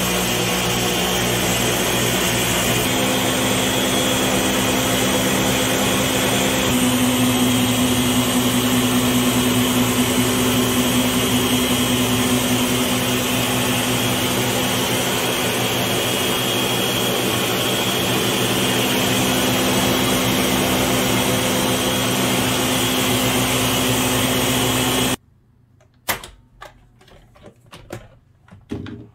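Ninja countertop blender running steadily on its low setting, churning heavy whipping cream and cold water until the butter separates. The motor stops suddenly about 25 seconds in, followed by a few clicks and knocks as the lid is taken off.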